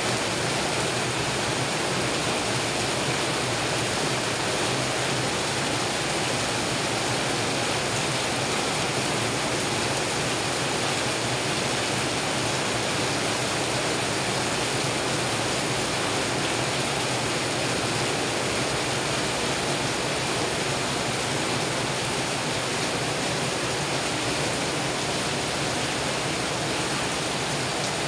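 Heavy rain pouring down steadily, a dense, even hiss of downpour that does not change.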